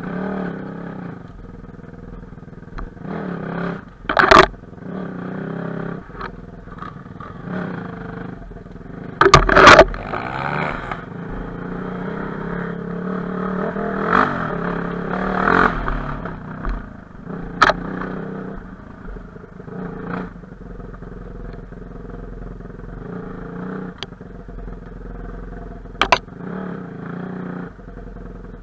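Enduro motorcycle engine running and revving up and down over rough ground, with several sharp knocks and clatters, the loudest about nine to ten seconds in.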